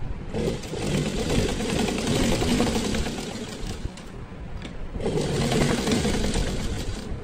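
A black Shakti sewing machine stitching through paper edged with binding: two runs of stitching with a short pause between them, about four seconds in.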